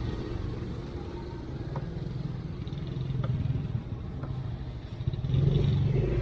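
Yamaha Mio scooter's small single-cylinder engine running while riding, mixed with road and wind noise, a low steady rumble that grows louder near the end.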